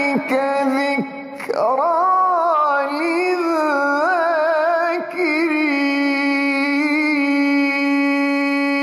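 A man's voice reciting the Quran in melodic tajweed style, drawing out the closing phrase of the verse with ornamented turns in pitch. From about five seconds in he holds one long steady note.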